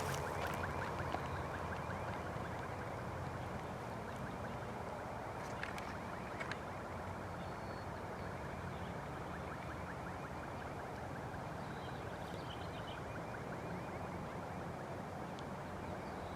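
EMS Mini 3T22B siren winding down at the end of its signal, its falling tone fading out within the first second. After it comes steady, quiet outdoor background noise with a low hum and a few faint high chirps.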